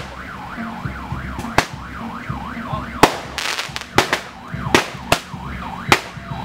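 A yelp-style siren wailing up and down about three times a second, broken by about seven sharp cracks like firecrackers at uneven intervals, over a low engine rumble.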